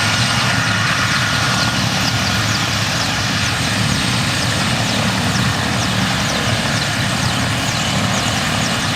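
Military helicopter running, with a steady rotor and turbine engine noise that holds at an even level.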